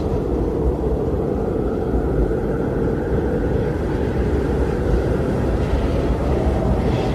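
Strong wind blowing in a steady, deep rush, with a faint hiss rising higher near the end.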